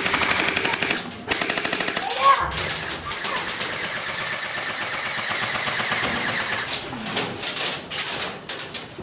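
Airsoft rifles firing on full auto: several long bursts of rapid, even rattling, broken by short pauses.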